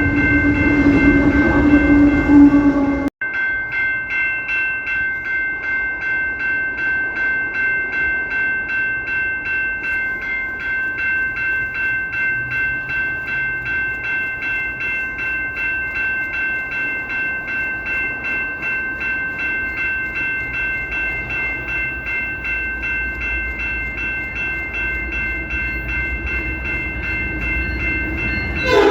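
CP Rail locomotive air horn held in one long continuous blast, a steady chord of several notes with a regular pulsing in its loudness. A lower note drops out at a sudden brief break about three seconds in.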